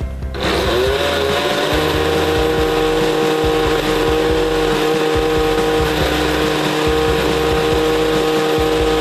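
Countertop blender switched on about half a second in: the motor spins up, then runs steadily while it blends thick homemade mayonnaise.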